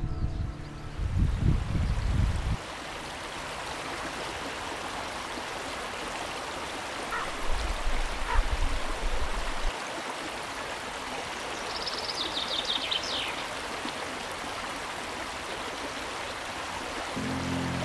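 Mountain stream rushing over rocks: a steady hiss of running water. A low rumble swells for about two seconds near the middle, and a brief high chirping series comes about two-thirds of the way through.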